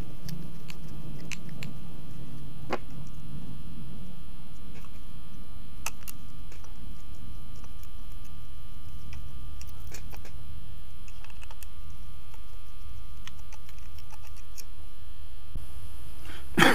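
Faint small clicks and ticks of a folding Torx key turning tiny screws and knocking against a plastic-and-metal ABS control module as it is handled, over a steady background hum. A short louder noise comes at the very end.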